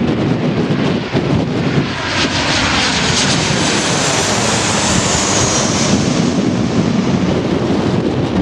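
Jet airliner passing close by, its engines making a loud rushing noise with a high whine that falls slightly in pitch as it goes past, over strong wind buffeting the microphone.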